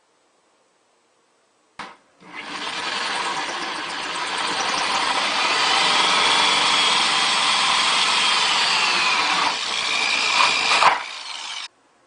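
A click, then a power drill boring a large hole through a plastic bucket wall, running steadily for about nine seconds with a high whine that drops in pitch near the end before the drill stops.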